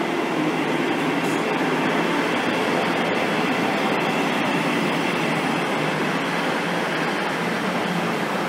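First Great Western Class 158 diesel multiple unit running past along the platform: the diesel engines and the wheels on the rails make a steady, even noise.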